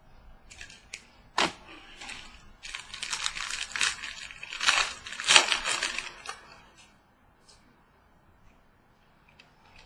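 Trading-card pack wrapper being torn open and crinkled, after a few sharp clicks of handling. The crackling lasts about three seconds, then dies away.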